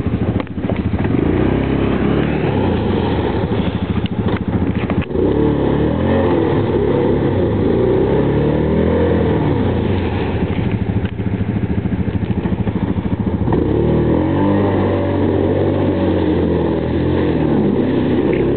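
Yamaha Grizzly ATV engine revved up and down over and over as the quad churns through deep, muddy water, its wheels spinning and throwing up spray.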